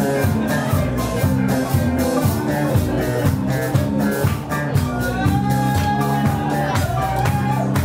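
Live funk band playing, with a busy, repeating bass line, drum kit, congas and guitars. About five seconds in, a long note is held over the groove for roughly two and a half seconds.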